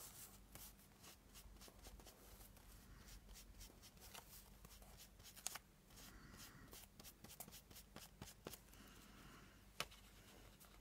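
Faint handling of paper and craft materials: soft rustling and scratching with scattered light clicks and taps.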